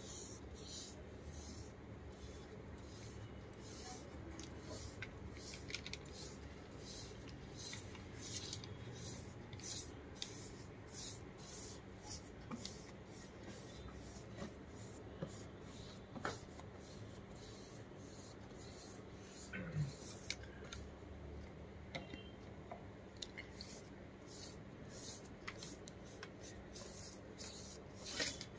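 Paintbrush bristles scraping across a paint-coated cupboard panel in quick back-and-forth strokes, a short scratchy swish about twice a second that thins out in the last third, over a faint steady hum.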